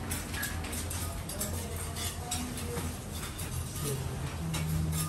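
A grout sponge rubbing back and forth over glazed wall tiles, wiping off grout residue, in repeated swishing strokes over a steady low hum.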